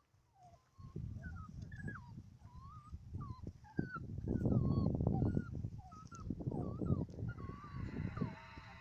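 Dalmatian puppies whimpering and squealing: a steady stream of short, high cries that rise and fall. Low rumbling and rustling noise begins about a second in and is loudest around the middle.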